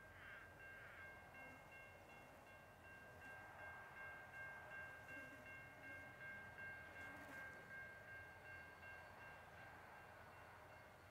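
Distant diesel freight locomotive sounding its horn: one long multi-note chord, held for about eight seconds, that stops about nine seconds in.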